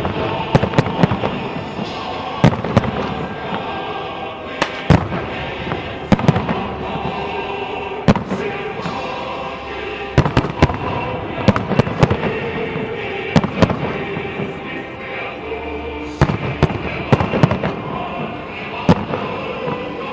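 Fireworks going off: a rapid, irregular string of sharp bangs, several close together at times, over a continuous background of music.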